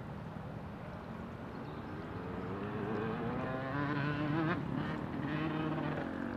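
A motorboat engine speeding up, its pitch rising for about two seconds, then cutting back sharply about four and a half seconds in and running on more evenly, over a steady low rumble.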